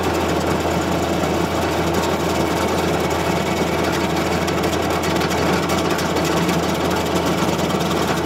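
Tractor-driven Baumalight 1P24 stump grinder running steadily, its cutter wheel chewing down into a hardwood stump over the constant drone of the tractor engine under PTO load.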